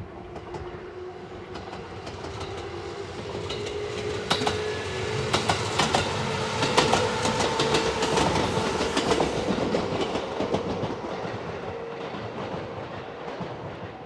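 JR West's La Malle de Bois tourist train, a converted 213 series electric multiple unit, passing close by: it grows louder, its wheels clicking over rail joints in the middle of the pass, then fades as it goes away. A steady tone runs under the passing noise.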